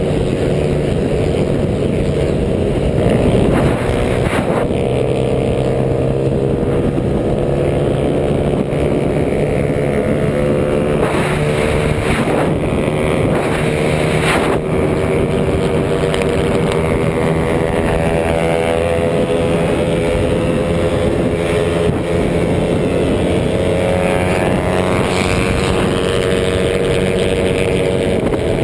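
Small motorcycle engine running hard at speed, recorded onboard, its pitch slowly rising and falling with the throttle, over a steady rush of wind on the microphone. A few brief gusts of noise flare up a few seconds in and again around the middle.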